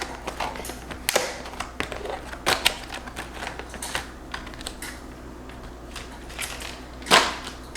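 Takeout food containers being handled and opened on a table: a run of irregular light clicks and taps, with a louder crinkle about seven seconds in.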